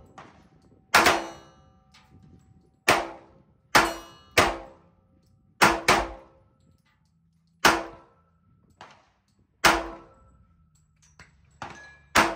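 Smith & Wesson 1911 .45 ACP pistol fired in a slow string of single shots, unevenly spaced one to two seconds apart, with two in quick succession near the middle.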